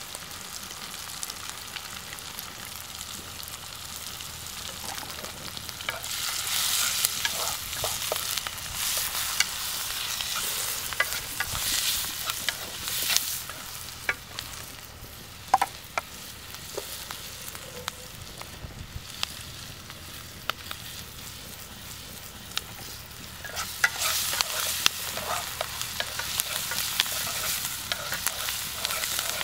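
Sliced onions and green chillies with chilli powder sizzling in oil in a wok, stirred and scraped with a wooden spatula. The stirring comes in two busy stretches of several seconds, each full of sharp scrapes, with a steadier sizzle between them.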